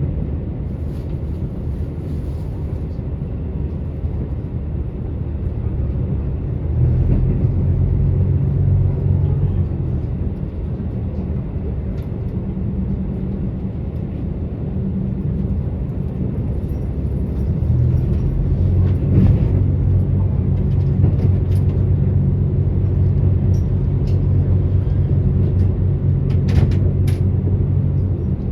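Diesel engine of a KiHa 85 railcar running under load, heard from inside the car: a steady low drone that grows louder and fuller about seven seconds in and again at about eighteen seconds. A few faint clicks come near the end.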